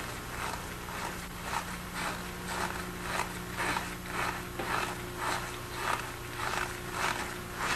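Short rubbing, scraping strokes, about two a second, as the plastic cone is twisted off the endoscope's body section by hand, over a steady low hum.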